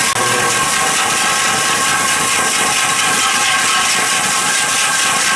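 HMC 500 electric core drill running steadily with a large 500 mm diamond core bit turning, a steady motor whine over a hiss. The sound is very smooth: the drill has slow-started and is running well.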